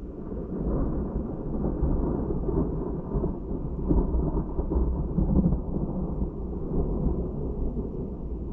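Thunder rolling after a lightning strike: a deep rumble that builds up quickly, swells twice about four and five seconds in, then slowly eases off.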